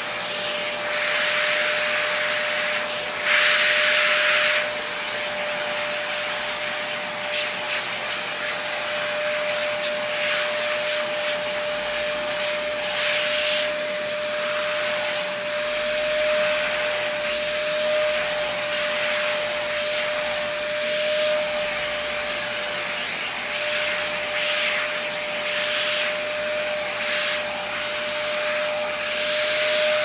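Vacuum cleaner running steadily through a hose with a nozzle attachment drawn over a cat's fur: a continuous rush of air with a steady whine. The rush of air grows briefly louder about three seconds in.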